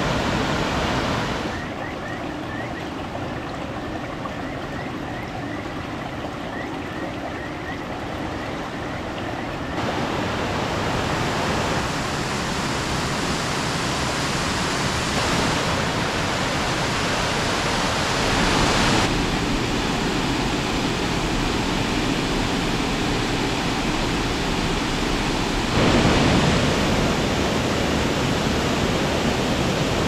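Rushing white water of mountain stream cascades and waterfalls pouring over boulders, a steady hiss. Its level and tone change suddenly several times as one stretch of water gives way to another.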